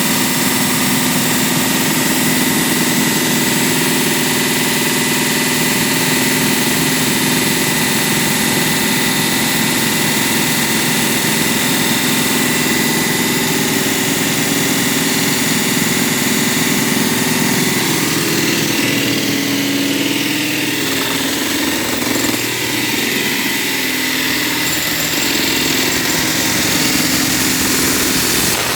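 Engine of concrete cutting or demolition machinery running steadily, its tone shifting about two-thirds of the way through.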